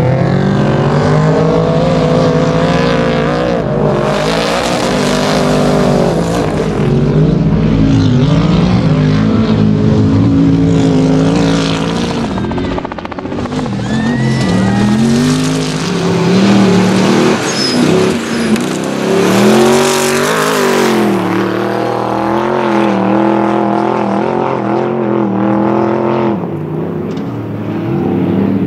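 Twin-turbo off-road race truck engine running hard, revving and accelerating, its pitch climbing and falling again and again.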